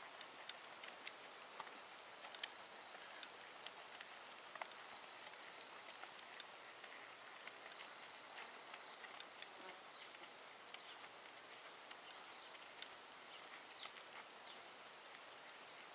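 Faint hoofbeats of a horse loping on loose plowed dirt, heard as scattered light ticks over a steady hiss.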